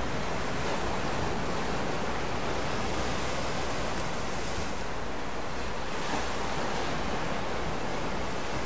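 Steady rushing of wind and waves on open lake water, an even noise with no distinct events.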